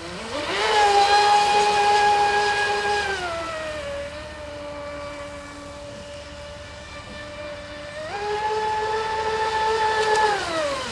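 Radio-controlled speedboat's motor whining at full throttle. The pitch climbs sharply about half a second in, holds, and sinks a few seconds later. It then climbs again about two-thirds of the way through and falls away near the end.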